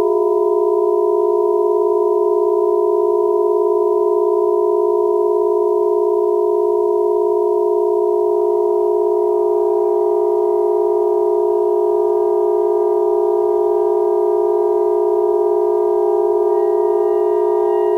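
Sustained just-intonation drone from saxophone quartet and electronics: a chord of steady held tones without a break, with faint higher tones joining about halfway through and again near the end.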